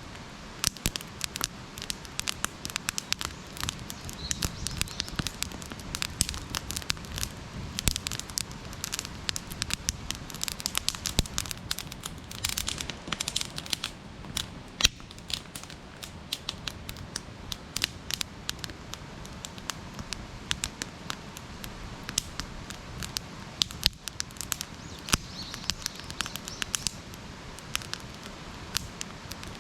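Wood campfire burning, with many irregular sharp pops and crackles over a soft steady hiss of the flames.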